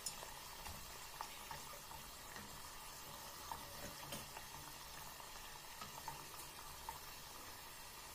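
Hot oil sizzling and bubbling quietly around a rosette of khvorost dough deep-frying in a saucepan, with scattered faint clicks.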